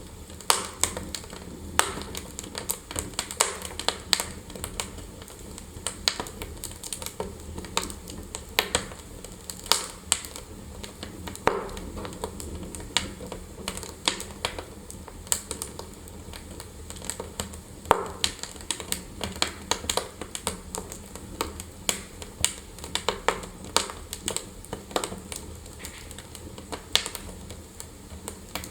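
Wood fire in a fireplace crackling: irregular sharp snaps and pops, some much louder than others, over a low steady hiss.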